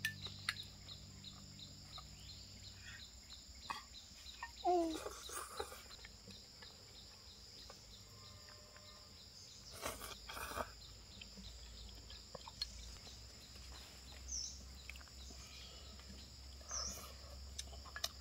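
Farmyard ambience: a steady high insect drone, with a few short bird or fowl calls and chirps over it and brief rustling about ten seconds in.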